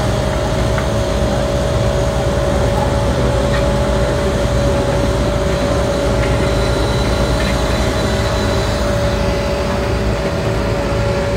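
Menzi Muck spider excavator running steadily, a low diesel rumble with a steady high whine held over it as the machine swings its boom and legs.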